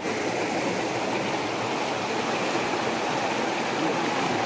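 Shallow, fast mountain river running over rocks and boulders: a steady rush of water.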